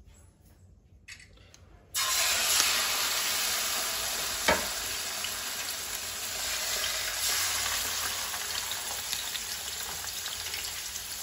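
Boneless fish fillets frying in hot oil in a wide aluminium pan. There is almost nothing for the first two seconds, then a loud sizzle starts suddenly as the first fillet goes into the oil and keeps going as a second fillet is laid in beside it. A single sharp tap comes about halfway through.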